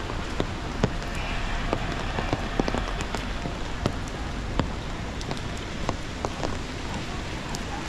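Steady rain, with sharp drop hits scattered irregularly through it.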